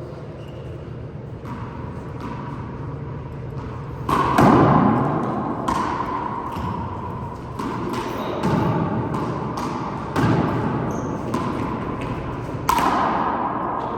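Rubber handball smacking off the court walls and hands in a rally: a run of sharp, irregular smacks with a short ringing echo, the loudest about four seconds in and near the end.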